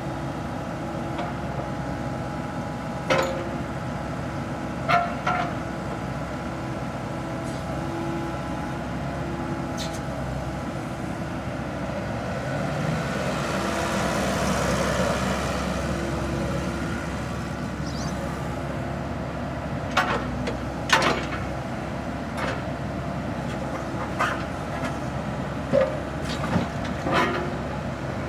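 Komatsu PC78 compact excavator's diesel engine running steadily while the upper structure swings round and back, the engine and hydraulics getting louder under load in the middle. Sharp metallic knocks come now and then, in a cluster near the end.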